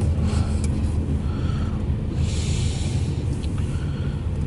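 Intermodal freight train passing: the steady low rumble of container well cars rolling over the rails, heard from inside a car, with a few faint clicks and a short hiss about two seconds in.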